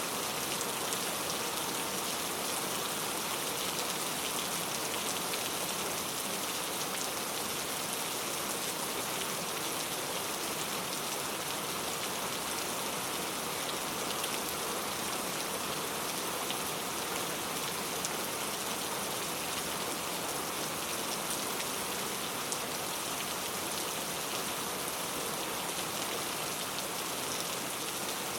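Very heavy rain falling steadily, a dense even hiss of drops striking a surface with fine scattered pattering.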